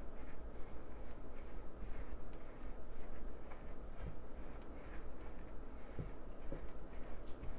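Spatula scraping and stirring a crumbly mix of baking soda powders and melted oils in a bowl: repeated soft, gritty scrapes, about two a second.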